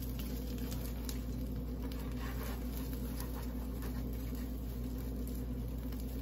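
Egg frying in a pan, with a faint crackle and a few light spatula scrapes and taps against the pan as it is flipped and pushed around, over a steady low hum.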